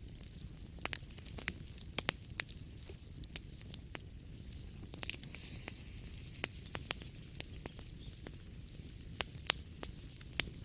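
Wood fire crackling in a fireplace: irregular sharp pops and snaps, some in quick clusters, over a steady low rumble of the flames.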